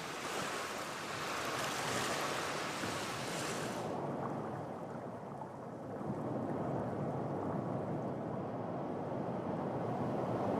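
Sea waves washing onto the shore, a steady rushing surf noise. Its higher hiss drops away about four seconds in.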